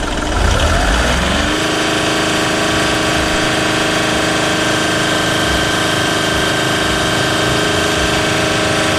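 Volkswagen Polo TDI diesel engine revved up from idle about a second in, then held at steady raised revs.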